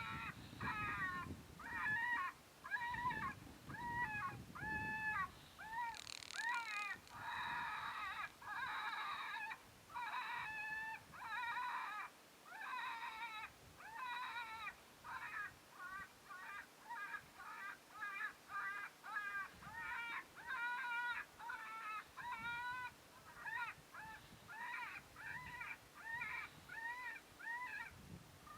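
Predator call playing an animal distress sound: short, high, wavering cries repeated over and over, about one to two a second.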